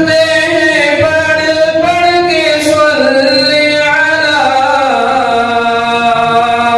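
A man singing a devotional naat in long, drawn-out notes that bend slowly in pitch, with no instruments heard.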